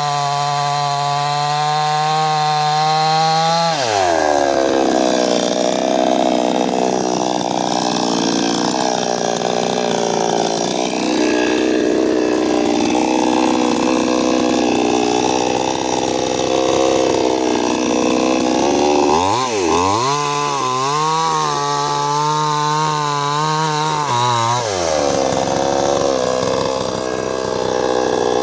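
A 55 cc petrol chainsaw held at full throttle, then sinking in pitch and wavering as the chain bites into wood. It is freed to a steady high whine for a few seconds near the middle of the second half, then drops back into the cut.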